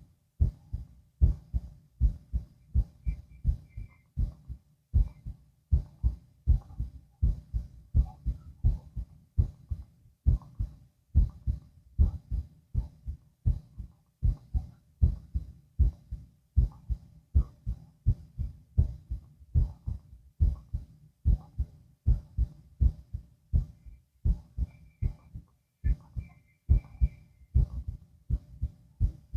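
A person's heartbeat heard through auscultation: a steady, regular rhythm of paired low lub-dub thumps.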